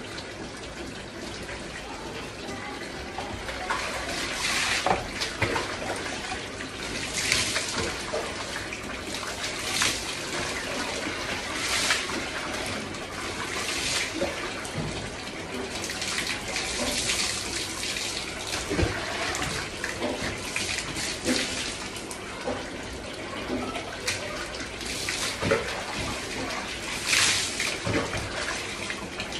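Bath water poured over the body from a plastic mug, again and again, splashing onto a wet floor every two to three seconds, over a tap running steadily into a bucket.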